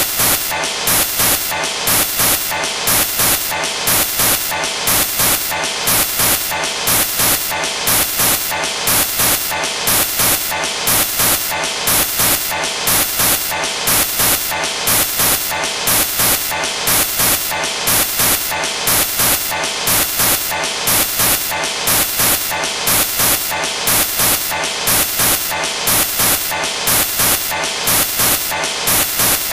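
Loud hissing digital static that pulses in a regular rhythm: a corrupted stretch of the recording.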